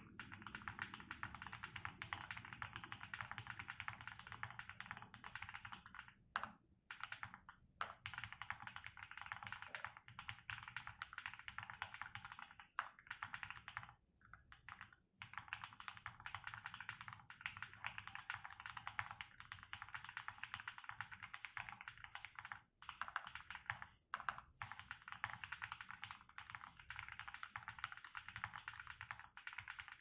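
Fast, continuous typing on a custom mechanical keyboard with lubed KTT Rose linear switches, an acrylic plate and a gasket-mounted acrylic case with foam: a dense stream of key strikes, broken by a few short pauses.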